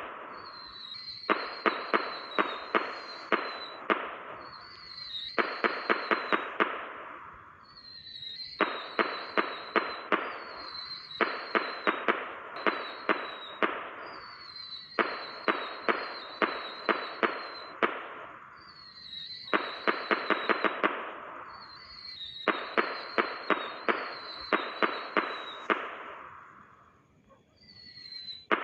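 Firework rockets going off round after round: each round a short high whistle with a quick string of sharp cracks, six to eight in a second or two, dying away in a crackle. The rounds repeat every three to four seconds, about eight times.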